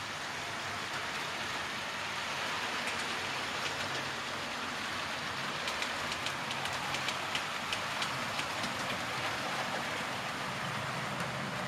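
Model trains running on the layout's track: a steady whirring rumble of wheels and motors, with a run of light, quick clicks in the middle.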